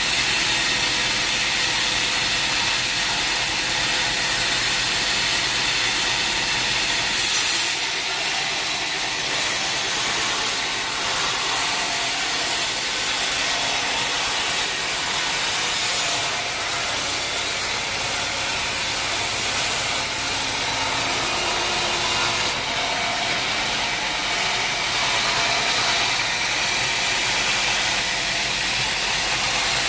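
Sawmill machinery running steadily while a saw cuts through a log. The cut sounds brighter and more hissing from about seven seconds in until about twenty-two seconds.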